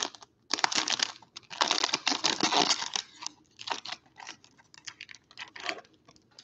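Foil wrapper of a baseball card pack crinkling and crackling as it is torn open and the cards are slid out, densest in the first half, then a few lighter crinkles.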